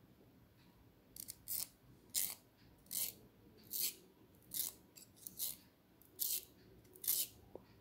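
Wooden pencil being sharpened in a small blue plastic Nataraj handheld sharpener: the blade shaves the wood in a short scraping stroke with each twist, about one a second, starting about a second in.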